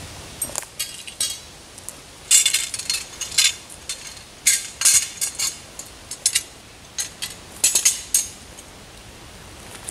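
Metal treestand brace and rail sections clanking and clinking as they are handled and set down. The knocks come in a loose irregular series, a few with a short metallic ring.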